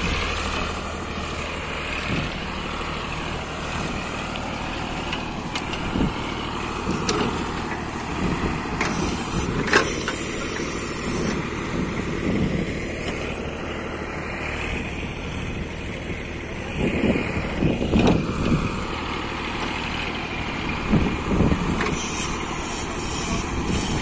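Eicher tractor's diesel engine running steadily while it powers a backhoe loader, with a few sharp knocks, two short spells of hiss, and several brief louder surges in the second half.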